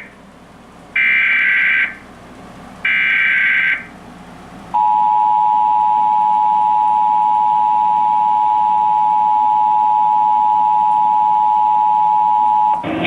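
Emergency Alert System SAME header: the end of one warbling digital data burst, then two more bursts of about a second each, with gaps between them. These are followed by the EAS two-tone attention signal (853 and 960 Hz sounded together), a loud, steady, harsh tone held for about eight seconds and cutting off near the end.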